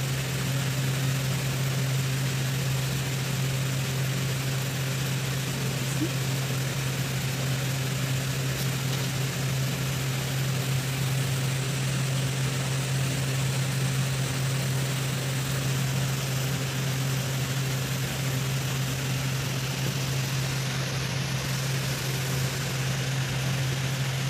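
A steady low machine hum with a constant hiss over it, unchanging in level throughout.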